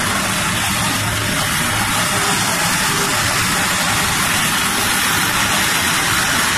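Live psychedelic rock band playing loud, recorded from within the audience: a dense, noisy wash of distorted instruments with no clear melody line.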